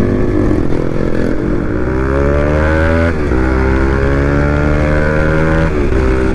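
Bajaj Pulsar RS200's single-cylinder engine accelerating hard. Its pitch climbs, drops at an upshift about three seconds in, then climbs again until another shift near the end.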